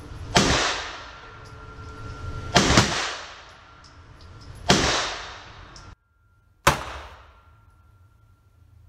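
Semi-automatic pistol shots fired one at a time about two seconds apart, each sharp crack followed by a long reverberating tail in the enclosed range hall.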